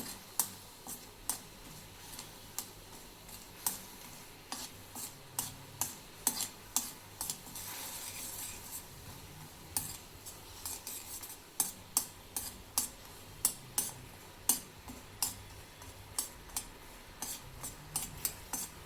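A spoon stirring jaggery as it melts in a little water in a hot kadhai, clinking and tapping against the pan in irregular strokes over a faint sizzle.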